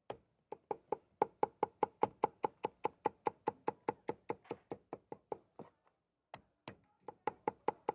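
Cleaver chopping meat on a wooden block for roujiamo filling, in a rapid, even run of about six strokes a second. It pauses briefly about six seconds in and then starts again.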